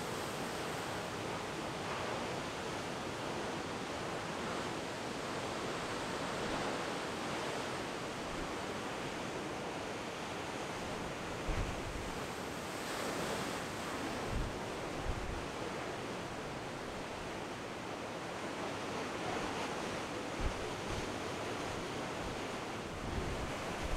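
Heavy storm surf of 20-foot seas breaking on a rocky shore: a steady rushing wash of breaking water. A few brief low thumps of wind buffeting the microphone stand out now and then.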